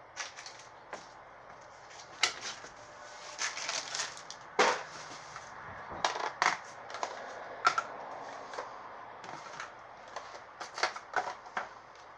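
Rummaging through a cluttered pile of household items: irregular clicks, knocks and rustles as objects are picked up, moved and set down, with the sharpest knocks about four and a half and seven and a half seconds in.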